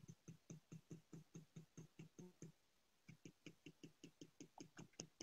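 Faint, quick clicking of a fork stirring ricotta and egg in a glass bowl, about five strokes a second, with a short pause about halfway through.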